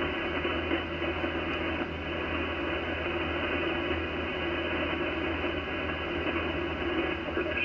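Icom IC-756PRO shortwave transceiver receiving on the 40-metre band in lower sideband: a steady hiss of band noise and static through its speaker, with a low hum underneath.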